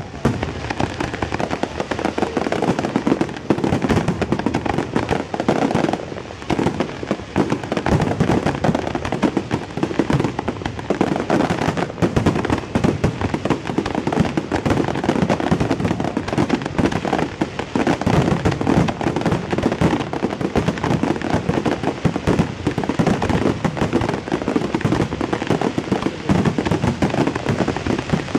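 Fireworks display going off in a dense, continuous barrage of overlapping bangs and crackling, with no break.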